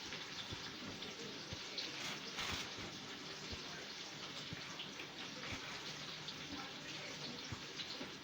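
Flour-coated beef roast sizzling in hot grease in a skillet: a steady frying hiss with small crackling pops.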